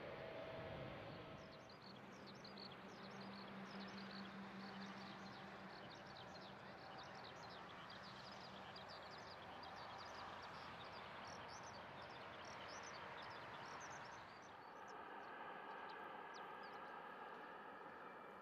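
Many birds chirping in quick, high, short notes over a faint steady mechanical hum. From about three-quarters of the way in, the chirping thins and a steady whine of several tones comes up.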